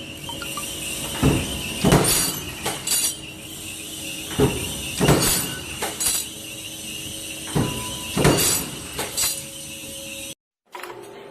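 Factory machinery: sharp clanks and knocks at an uneven pace, about one or two a second, over a steady high-pitched whine. The sound cuts out abruptly near the end, and a different machine sound follows.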